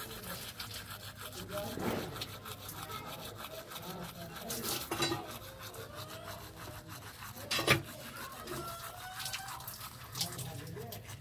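Teeth being brushed with a toothbrush: quick scratchy scrubbing strokes throughout, with one sharp knock about three quarters of the way through.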